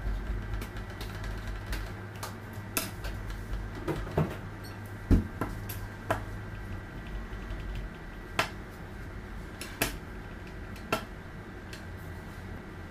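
Plastic rolling pin rolling fondant back and forth on a stone countertop: a low rumble with scattered clicks and knocks, the loudest knock about five seconds in. The rumble stops about eight seconds in, leaving only occasional clicks.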